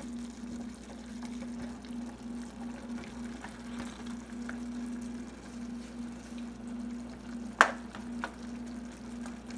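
Fish escabeche sauce simmering in a nonstick frying pan, over a steady low hum. A sharp knock sounds about three-quarters of the way through, with a lighter one just after.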